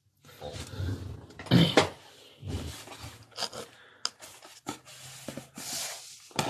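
Cardboard box being opened by hand: irregular scraping and rustling of the cardboard flaps, with a few sharp clicks.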